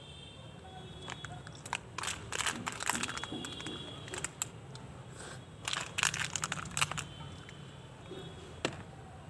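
Plastic snack packet crinkling as it is handled and opened, in two bursts of crackly rustling, the first about two seconds in and the second about six seconds in.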